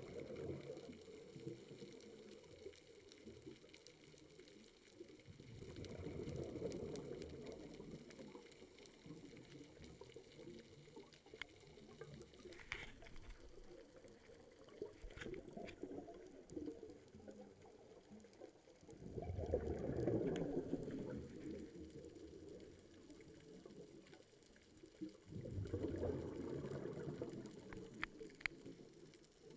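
Scuba diver's regulator exhaust bubbling underwater, in bursts on each breath out, four times, with a quieter haze between. A few faint sharp clicks are scattered in the gaps.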